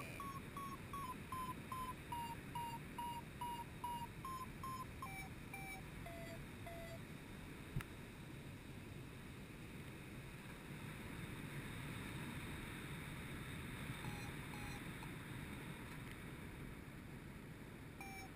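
Paragliding variometer beeping in short, evenly spaced beeps whose pitch steps down, rises briefly, then drops further, following the climb rate. The beeping stops about seven seconds in and returns for a few beeps near the end. Wind rushes over the microphone throughout.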